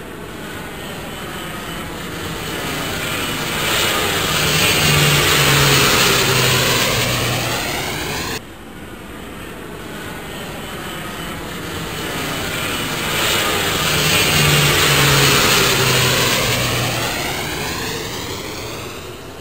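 Jet aircraft passing low overhead on its landing approach, the engine noise swelling and then fading. It happens twice, with an abrupt cut between the two passes.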